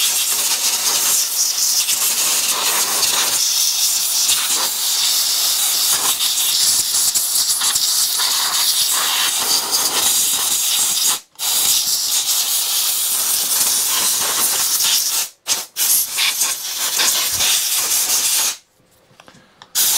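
Compressed-air blow gun hissing in long blasts, blowing dirt off the area around a hedge trimmer's carburettor. The air cuts out briefly about halfway, and twice more in quick succession a few seconds later. It stops near the end, then a short blast starts again.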